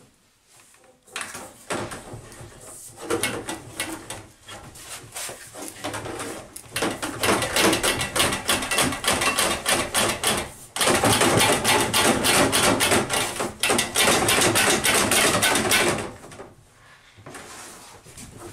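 PEX plastic tubing being pushed and worked through the porcelain trap of a toilet to dislodge jammed toys, with continual scraping and clattering knocks. It gets louder and busier about halfway, then dies away about two seconds before the end.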